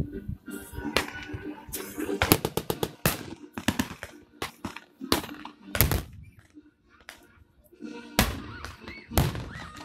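Battle-reenactment gunfire and pyrotechnic blasts: irregular sharp shots from blank-firing weapons, with a rapid run of shots a little after two seconds in. A heavy pyrotechnic explosion goes off about eight seconds in.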